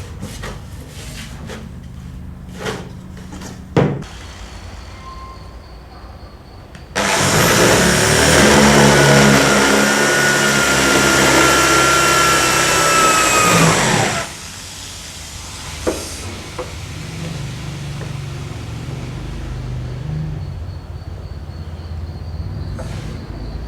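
A power tool runs at full speed for about seven seconds, starting suddenly and winding down with a falling pitch when switched off, over a steady low machine hum with a few sharp knocks before and after.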